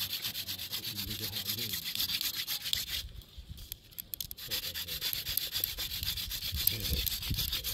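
Rapid, rhythmic rubbing or scraping, many strokes a second, with a pause of about a second and a half about three seconds in.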